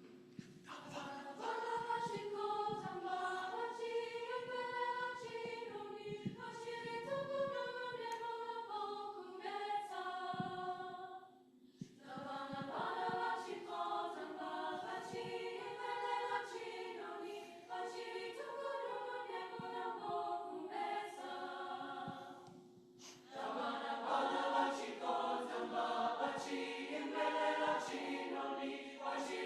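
Choir singing a South African song a cappella in several parts, with hand claps keeping time. The singing breaks off briefly twice, about 11 and 23 seconds in, and starts again.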